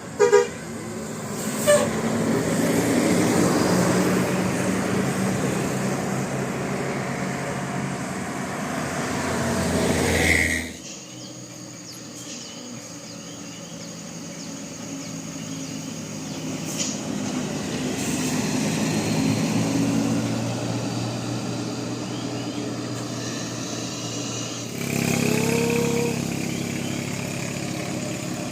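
Road traffic: a heavy bus engine running loudly as it passes close, building and then stopping abruptly about ten seconds in, followed by quieter passing traffic that swells again near the end. Two brief sharp sounds come near the start.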